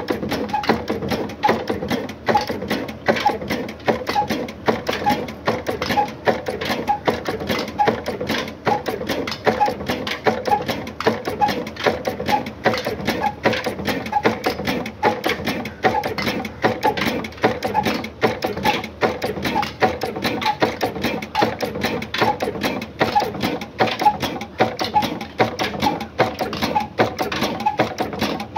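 Old Ruston Hornsby diesel engine running steadily: an even, quick mechanical clatter of regular clicks and knocks.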